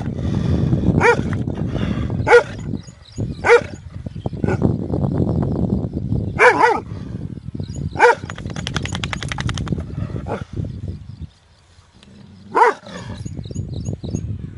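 A large dog barking: about eight deep, single barks at uneven intervals, with a steady low rumbling noise between them. A brief rapid rattle follows one bark just past the middle.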